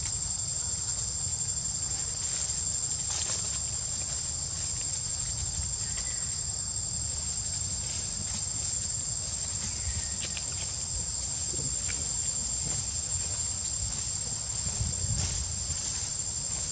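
Steady, high-pitched drone of insects calling in the forest, unbroken throughout, with a low rumble underneath.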